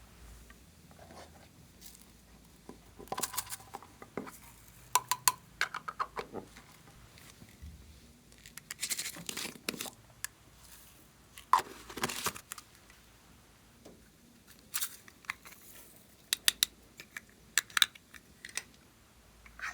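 Slime being handled and mixed by hand, giving irregular bursts of sticky crackles, pops and crinkling clicks with quiet gaps between.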